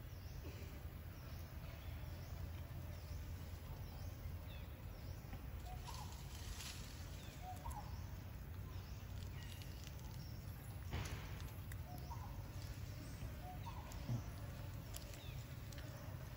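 Outdoor forest ambience: faint bird calls repeating over a low steady rumble, with a couple of sharp clicks about eleven and fourteen seconds in.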